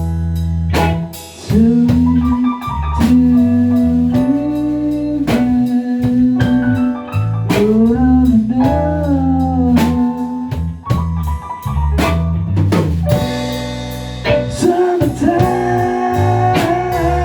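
Rock band playing a blues-tinged song: drum kit keeping a steady beat under a bass line, with a held, bending lead melody carried on top.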